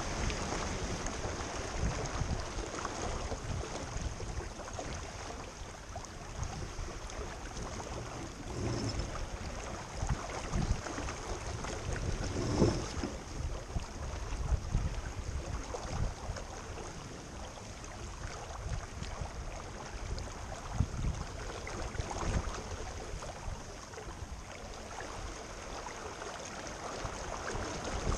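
Wind buffeting the microphone over water noise on a small boat under way, with irregular swells and no steady tone.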